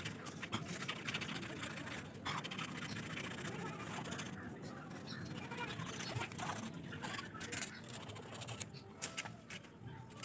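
Bamboo stalks and dry leaf sheaths rustling and knocking as they are handled at the base of the clump, with irregular clicks and snaps.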